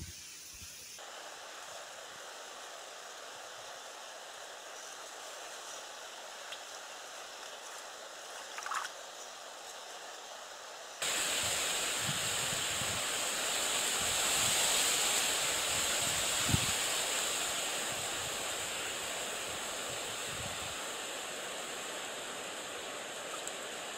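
Wind outdoors: a steady rushing hiss, quiet at first, then suddenly louder about eleven seconds in, with a few low thumps of wind buffeting the microphone.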